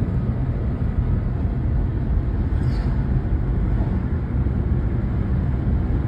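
Steady road and wind noise of a moving car heard from inside it, a constant low rumble without a break.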